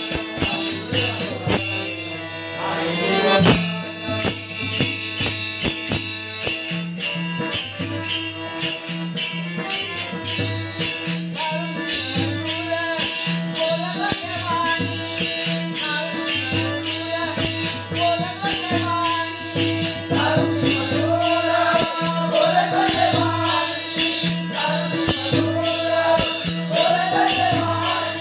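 Warkari bhajan music: fast, even metallic beats of hand cymbals over a repeating low drum pattern and a held drone note. A man's singing voice comes in about eleven seconds in.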